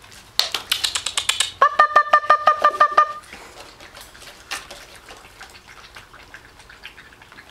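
A person making a rapid string of high-pitched 'pop-pop-pop' calls to draw the puppies' attention. It starts as a fast clicking patter, then runs into about a dozen short, even chirps at one pitch that stop about three seconds in.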